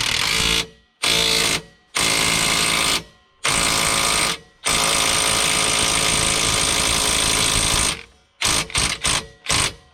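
Impact wrench running down and tightening the rear lower control arm bolt in bursts: four short runs, one long run of about three seconds, then several quick blips near the end.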